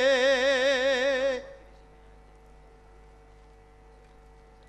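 A voice in Javanese chanted recitation holds one long note with a strong vibrato and breaks off about a second and a half in. After it there is only a faint steady hum.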